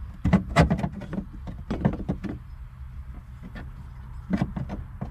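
Clicks and knocks of the plastic fuel sending unit and its lock ring being worked by hand in the fuel tank opening, in three short clusters, over a low steady hum.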